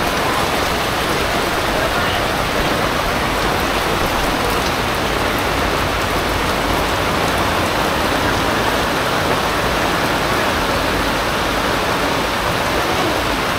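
Heavy rain pouring down, a loud, steady hiss with no letup.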